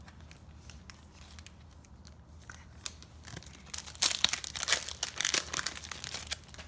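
Foil Match Attax trading-card pack being torn open, with loud crackling crinkles about four seconds in and lasting a couple of seconds; before that only a few light taps of cards being handled.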